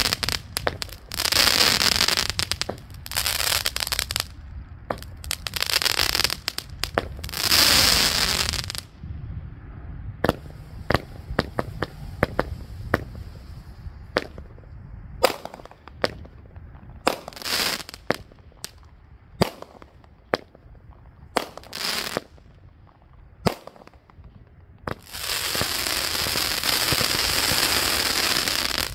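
A 200-gram consumer firework cake firing its crackling comets. Dense crackling comes in waves for the first nine seconds, then a run of separate sharp pops and cracks, then a continuous dense crackle over the last four seconds.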